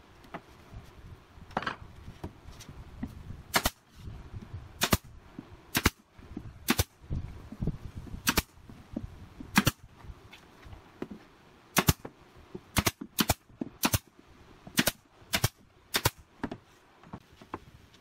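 Pneumatic nail gun firing single shots into the pallet pine boards as the panels are fastened: about a dozen sharp cracks at uneven intervals, mostly a second or so apart.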